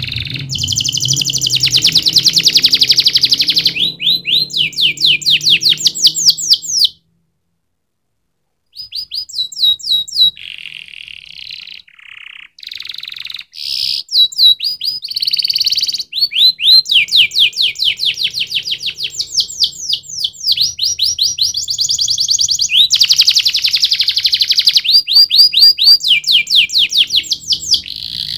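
Domestic canary singing: long fast trills of rapidly repeated high notes, one run after another at different pitches. The song stops in a dead-silent gap of about two seconds about seven seconds in, then goes on.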